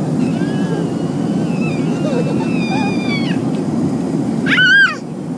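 A toddler's thin, high-pitched cries and gliding squeals, ending in one loud short squeal about four and a half seconds in, over the steady noise of an airliner cabin.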